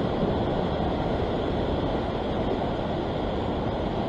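Ocean surf breaking and washing over shoreline rocks: a steady, even rushing noise, with wind buffeting the microphone.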